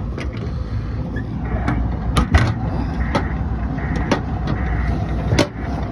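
Several sharp metallic clicks and knocks, the loudest about two seconds in and again near the end, as a hinged compartment cover on the excavator is shut and latched. A steady low rumble runs beneath them.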